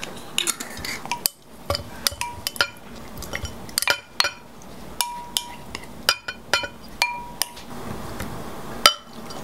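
Repeated sharp glass clinks and ice knocking as crushed mint and lime are tipped from a glass bowl into a tall glass of ice cubes; a few clinks ring briefly, and the loudest comes near the end.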